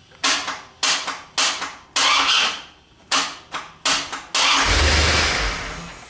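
1992 Corvette's starter clunking hard each time the key is turned, about seven sharp clunks in four seconds without the engine cranking: a failing starter, with the battery and connections good. Near the end comes a longer, louder rumbling noise that lasts about a second and a half and fades.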